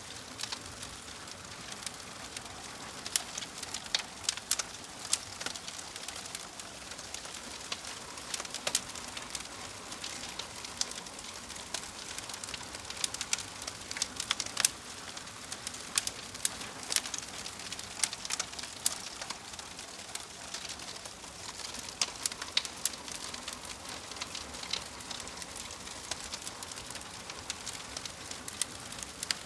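Logs burning in a fireplace, crackling: a steady hiss with frequent, irregular sharp pops.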